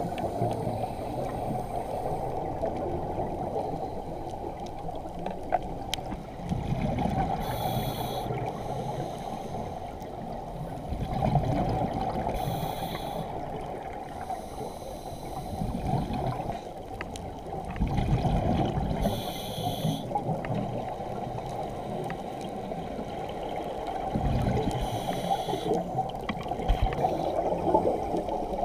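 Scuba diver breathing through a regulator underwater: a short hiss of inhalation about every six seconds, each followed by a burst of exhaled bubbles, over a steady underwater wash.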